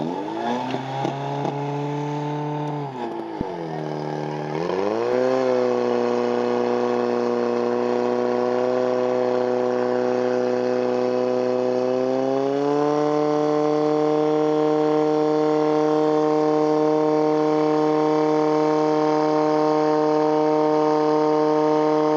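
Portable fire pump's engine running hard and revving up, dipping sharply about three seconds in and then climbing back to a steady speed. About twelve seconds in it steps up to a higher, steady speed while the pump drives water out through the hoses.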